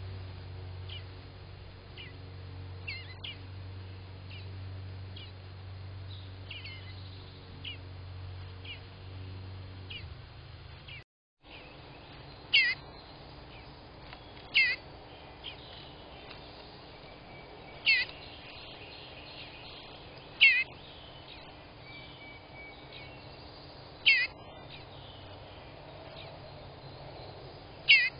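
Eastern bluebird fledgling calling from the nest box: six loud, short calls two to four seconds apart in the second half, with fainter chirping and a low hum before them.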